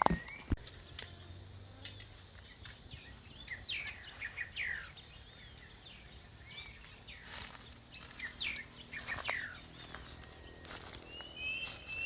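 Small birds chirping in short falling notes, with scattered light taps and clicks, two sharper ones right at the start. A steady high-pitched tone runs underneath.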